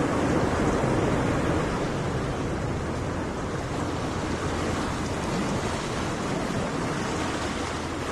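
Ocean surf washing onto a beach: a steady rush of waves, a little fuller in the first couple of seconds and then easing slightly.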